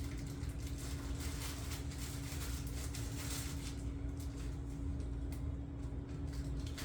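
Faint rustles and light taps of a hook-and-loop sanding triangle being pressed onto an oscillating multi-tool's pad. A steady low hum runs underneath.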